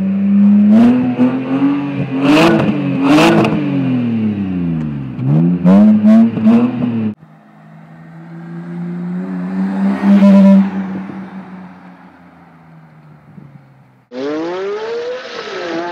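A 2008 BMW E90's N52 inline-six, running through a custom X-pipe, mid-pipe and quad-tip exhaust with a Magnaflow muffler, revved repeatedly at the tailpipes, its pitch rising and falling with several sharp cracks. About seven seconds in it gives way to the car driving past, swelling as it passes and fading. Near the end the engine accelerates, its pitch rising, dipping once and rising again.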